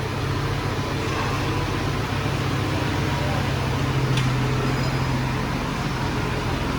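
Steady low mechanical hum over an even background noise, holding at one level throughout.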